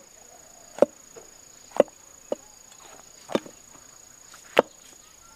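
Kitchen knife cutting shiitake mushrooms on a thick round wooden chopping block: about six single knocks of the blade on the wood, roughly a second apart. A steady high-pitched insect trill runs behind.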